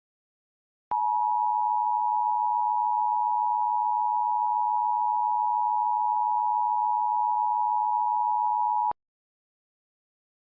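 Emergency Alert System attention signal: two steady, close-pitched tones sounded together for about eight seconds, starting abruptly about a second in and cutting off abruptly near the end.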